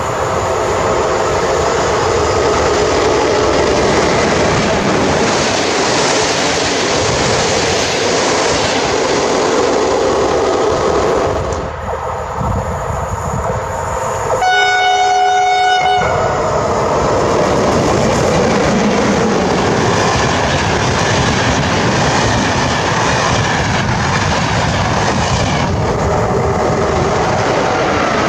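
Train passing with a continuous rumble and wheels clattering over the rail joints. About halfway through, it sounds a single horn blast of about a second and a half.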